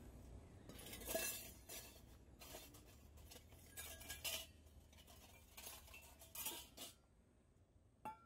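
Light clinks and taps of stainless steel bowls and a metal pour-over coffee dripper being handled on a table, with soft rustling of a paper coffee filter. The sounds come as a few separate short knocks, some ringing briefly.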